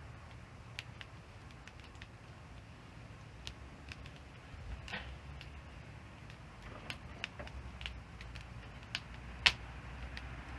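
Wood fire crackling: scattered sharp pops and snaps at irregular intervals over a faint hiss, with one loud pop about nine and a half seconds in.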